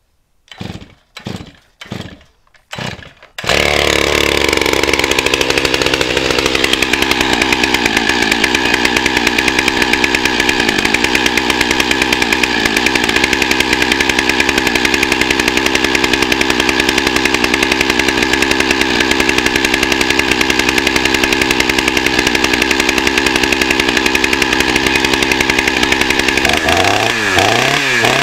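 Two-stroke chainsaw being pull-started: about five quick tugs on the starter cord, then it catches, runs fast and settles to a steady idle. Near the end it is revved up and down a few times.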